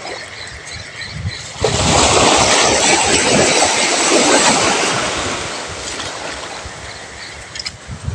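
A sea wave breaks on the shore about a second and a half in, its wash hissing and slowly fading over several seconds, with wind buffeting the microphone.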